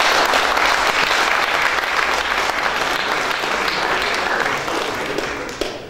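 Audience applauding, a dense patter of many hands clapping that tapers off and stops just before the end.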